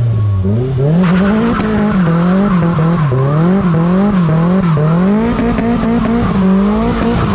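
Nissan Silvia S15 doing a burnout. The engine revs up about a second in, then its pitch rises and falls over and over as the throttle is worked, over the steady squeal and hiss of the spinning rear tyres.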